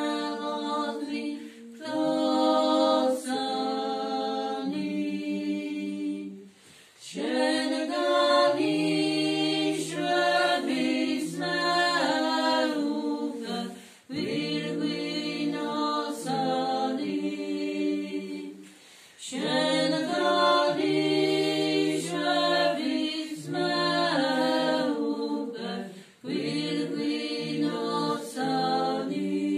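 A group of women singing an unaccompanied hymn together, several voices holding long notes at once. The singing comes in phrases of a few seconds with brief pauses for breath between them.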